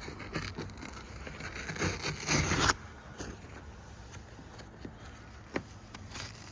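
Rough scraping and tearing as old material is worked off a boat panel, stopping abruptly about three seconds in. A single sharp click comes near the end.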